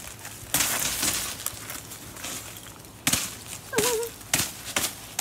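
Sheets of ice on a trampoline crunching and crackling under a child's knees and feet, in several sudden bursts about half a second and three seconds in and a few shorter ones after. A child's brief voice is heard just before four seconds.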